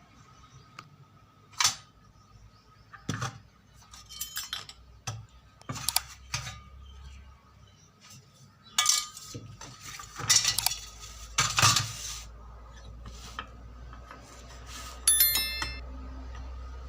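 Irregular clicks, knocks and metallic clinks of an electric iron being taken apart by hand, its metal parts and tools handled and set down, with one short ringing clink near the end.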